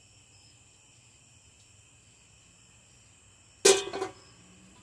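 Crickets chirping steadily and faintly, then a sudden loud clank about three and a half seconds in, with a smaller knock right after.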